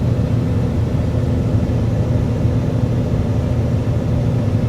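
Steady engine and road drone heard from inside a vehicle's cab while driving, an even low hum with no change in pitch.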